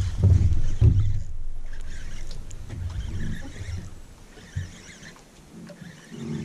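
Low thumps and rustling from an angler moving about and crouching on a wooden dock while handling a fishing rod. The thumps come in the first second, then quieter handling noise fades.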